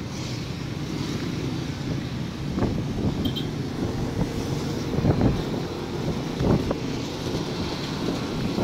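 Motorcycle taxi on the move: wind rushes over the microphone in a few gusts on top of the motorcycle's running engine and the surrounding road traffic.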